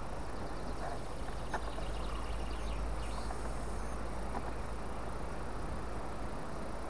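Open-air ambience on the water: a steady low rumble under faint bird chirps, with a few light knocks as fishing gear is handled in the boat.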